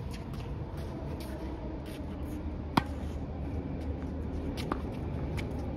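A tennis ball struck by a racket with a single sharp pop about halfway through, and a fainter hit near the end, over a steady low rumble.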